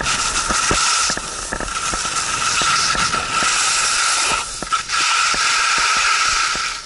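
Skis scraping over icy snow: a steady, loud hiss with many short clicks. It breaks off briefly about four and a half seconds in and fades near the end.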